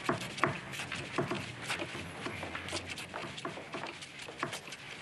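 Irregular light clicks and knocks, several a second, of objects being handled and set down.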